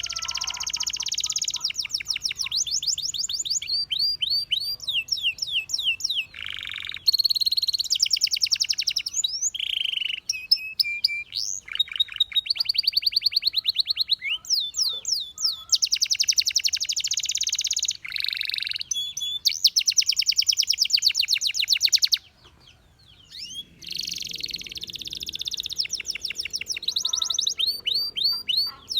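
Canary singing a long, varied song of rapid trills, rolls and repeated sweeping notes in phrases, with a brief pause about two-thirds of the way through.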